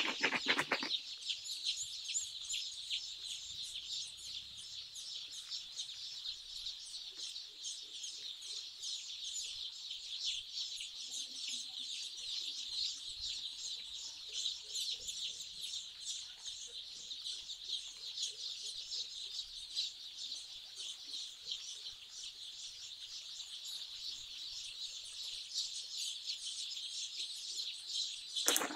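A large flock of day-old broiler chicks peeping all together: a dense, unbroken chorus of many overlapping high chirps.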